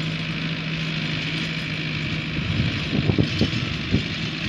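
Tractor diesel engine running steadily while pulling a rotavator through dry soil; the steady hum breaks into uneven pulses about halfway through.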